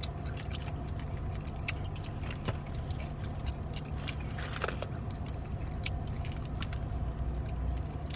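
Chewing and small mouth clicks as fried chicken wings are eaten, over the steady low hum of a car cabin with the engine running.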